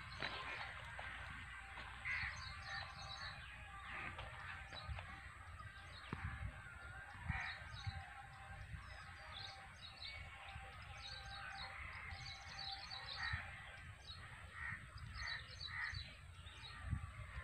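Many birds chirping and calling outdoors, short calls overlapping throughout, with a few louder, harsher calls among them and a low rumble underneath.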